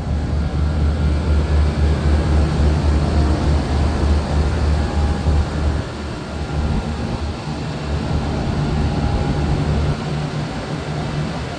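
Large commercial rooftop HVAC units running: a steady low mechanical drone of fans and compressors, easing a little about six seconds in.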